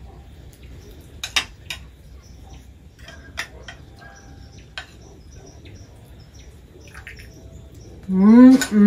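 Scattered light clicks and clinks of dishes and utensils as a bowl of menudo is garnished, with a few faint bird chirps. Near the end, a voice comes in loudly and briefly.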